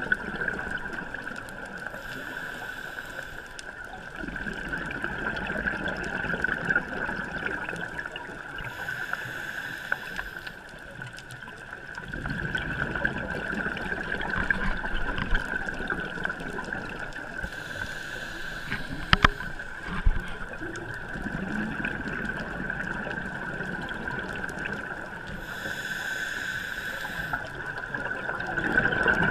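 Underwater scuba breathing: bubbles from a diver's exhalations gurgle past the microphone in bursts every several seconds over a steady hiss. Two sharp clicks come about two thirds of the way through.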